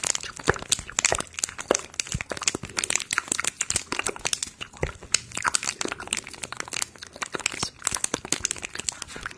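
Crinkling and crackling of something being crumpled or handled, a dense, irregular run of small crackles.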